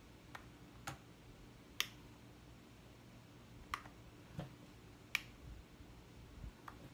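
Fingertips tapping the buttons on a small digital kitchen scale's stainless steel top: about seven sharp, irregular clicks while the units are being changed.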